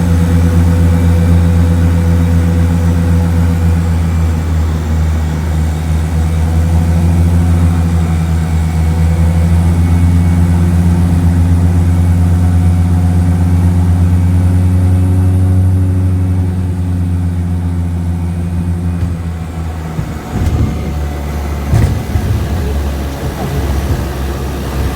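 Airplane engines running with a steady low drone. About 20 seconds in the drone drops and turns rougher, with a few sharp knocks.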